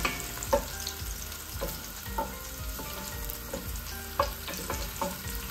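Sliced onions sizzling gently in a few spoonfuls of oil, frying soft rather than browning. A wooden spoon stirs them, with scattered light taps and scrapes against an enamelled pot.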